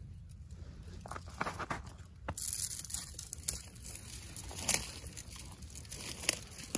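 A steel foothold trap being handled and set open: several sharp metal clicks and clinks spread over the seconds, with rustling and crinkling between them.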